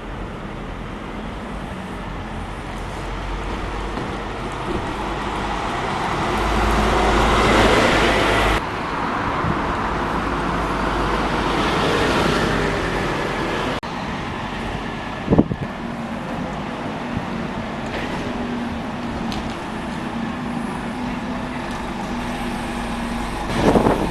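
Street traffic with road vehicles passing, swelling to its loudest about eight seconds in, with a single sharp knock about fifteen seconds in.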